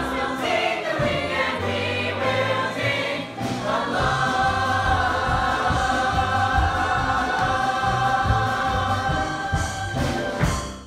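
Stage musical cast singing an upbeat ensemble number together with band accompaniment and a steady beat, building to a long held final chord from about four seconds in.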